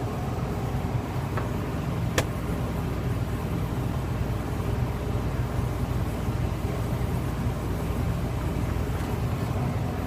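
Commercial refrigerator running with a steady low hum, heard from inside the closed cabinet. A sharp click comes about two seconds in.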